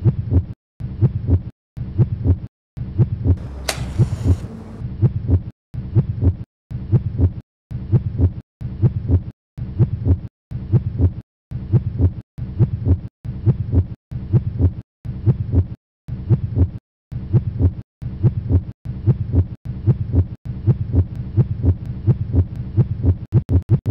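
Heartbeat sound effect: a steady low double thump, lub-dub, repeating a little more than once a second. A brief sharp sound cuts through about four seconds in.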